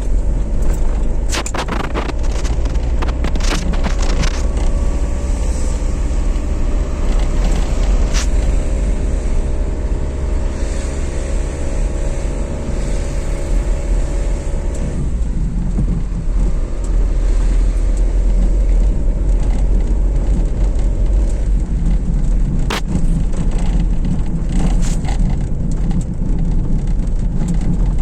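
A car driving along a motorway: a steady low rumble of road and engine noise. The engine's hum fades out about halfway through, and a few sharp clicks or knocks come near the start and again late on.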